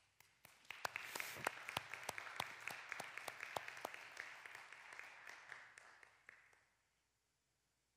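Church congregation applauding. Many people clap together, starting about half a second in and building quickly. The applause thins and fades out after about six seconds.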